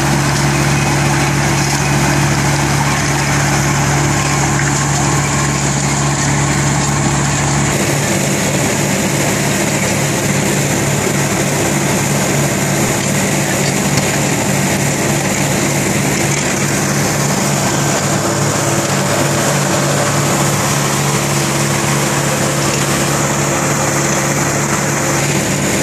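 Powerscreen Chieftain 2100 tracked screening plant running: its Deutz diesel engine hums steadily under the clatter of the vibrating screen and conveyors. The low hum drops a little about eight seconds in.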